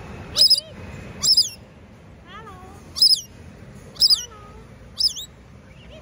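Pet parrot screeching: five short, shrill calls about a second apart, with softer gliding chirps in between.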